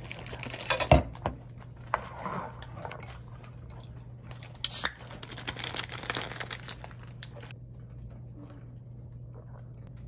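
Rustling and crinkling handling sounds with scattered sharp knocks, the loudest about a second in, over a steady low hum. It quietens to mostly the hum in the last couple of seconds.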